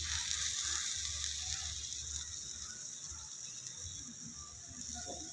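Steady sizzling hiss from a small clay cooking pot over a fire, starting sharply as liquid is ladled into the hot pot and slowly easing off.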